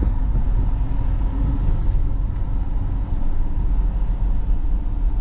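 Steady road and engine noise inside a moving Ford Explorer SUV's cabin: a low rumble with tyre hiss.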